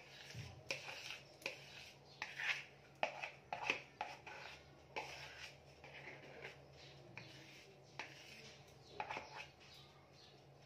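Spatula scraping the last of the cake batter out of a mixing bowl: a string of short, irregular scrapes and light knocks against the bowl.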